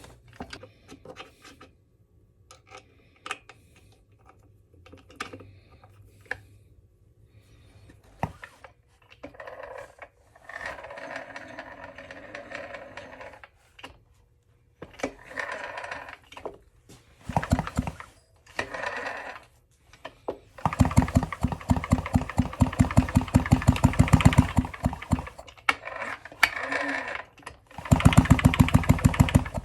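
A power tool run in bursts on the moped engine's fasteners after some scattered clicks of tool handling. The last two longer runs are a fast, even hammering typical of an impact driver working a bolt.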